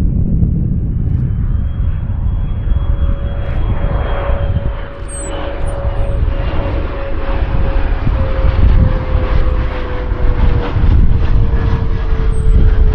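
Jet aircraft passing close on its landing approach: a heavy rumble under an engine whine that slowly falls in pitch as it goes by.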